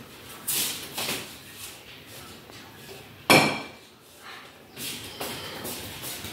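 Tableware knocking and clattering as a table is set, with one sharp, ringing clank about three seconds in.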